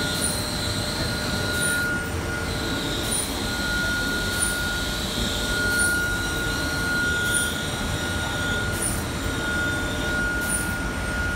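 Ceramic tile glazing line running: conveyor machinery gives a steady mechanical din with a steady high tone and a wavering squeal over it. A short high chirp repeats about every second and a half.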